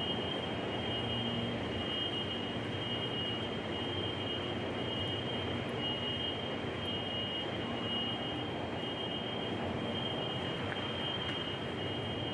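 Steady rushing background noise of an underground metro station, with a constant high-pitched whine over it.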